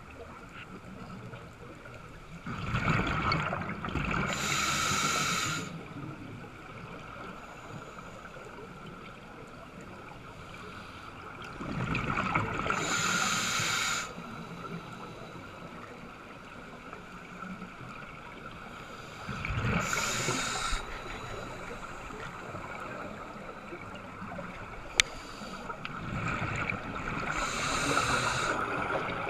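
Scuba diver breathing through a regulator underwater: four long bursts of exhaled bubbles gurgling past the camera, about every seven to eight seconds, with a steady quieter hiss between. A single sharp click comes near the end.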